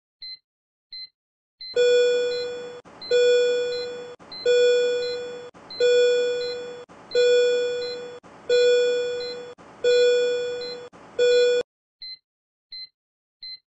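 Simulated patient-monitor app sounding short high beeps about 1.4 times a second. About two seconds in, a much louder repeating alarm tone cuts in: eight tones of about a second each, each fading, with short gaps. It stops suddenly near the end, and the beeps carry on. The alarm is the low-SpO2 alarm: SpO2 at 90 is below the alarm limit of 94.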